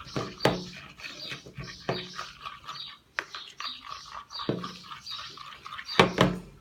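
Sticky, not-yet-set glue-and-detergent slime being mixed by hand, giving several sharp wet smacks, the loudest near the end. A small bird chirps repeatedly in the background.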